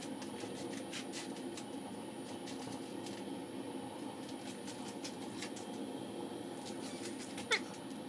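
A domestic cat's sounds laid over the picture: a steady low rumble, with a brief louder cry near the end.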